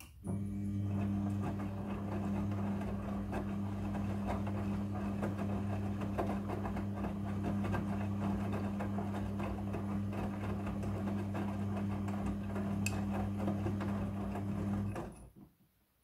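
Midea front-loading washing machine tumbling its wet load: a steady motor hum under a dense rustling of the clothes turning in the drum, which stops abruptly near the end.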